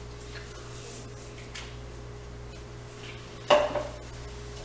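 Tableware knocking on a dining table: one sharp, loud knock about three and a half seconds in, with a brief ring after it. Before it come a few faint small clicks over a steady low hum.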